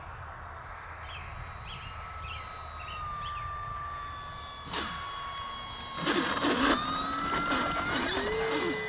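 Electric motor and propeller of a 4S-powered FMS 1500mm Cessna 182 RC plane whining at low throttle on the landing, its pitch slowly falling. A knock at touchdown comes about five seconds in, then a rattle of the wheels and landing gear bouncing over the grass. The motor whine rises near the end as the throttle comes up to take off again.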